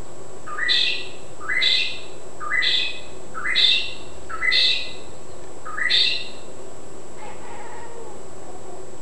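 Six short calls, each rising sharply in pitch, evenly repeated about once a second, then a fainter, lower call near the end. The calls come from the cat or the loud bird outside that it is reacting to.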